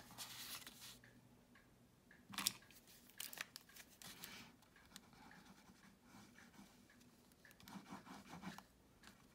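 Faint handling of cardstock: a green cardstock frame turned over and slid on the work surface, with a few light rustles and taps. Near the end comes a soft scratching as the tip of a liquid glue bottle is drawn across the card.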